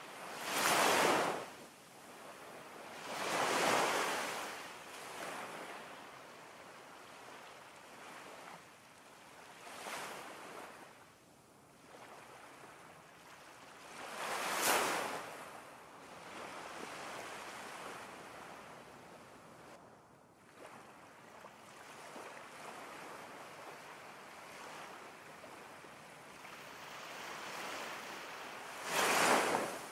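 Ocean waves washing in: a steady hiss of surf that swells and falls back every several seconds, loudest about a second in, around fifteen seconds and near the end.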